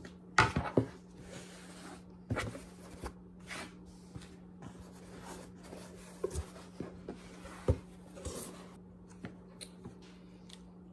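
Sharpie marker scratching around a wooden template on cotton fabric in short strokes, with sharp knocks as the template and marker are handled on the table and the rustle of fabric. A steady low hum runs underneath.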